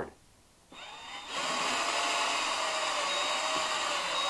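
Cordless drill starting about a second in and running steadily as it bores a hole through a thin plastic container.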